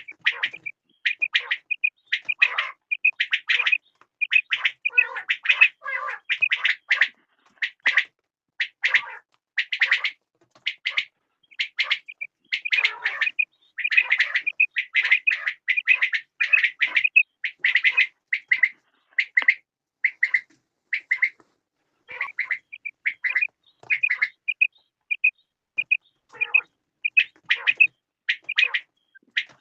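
Quails calling: runs of short, sharp notes repeated over and over with only brief pauses.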